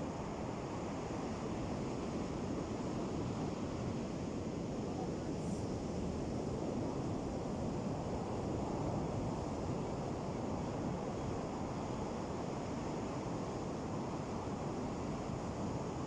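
Ocean waves breaking on a beach, heard as a steady rushing wash with no distinct individual breakers.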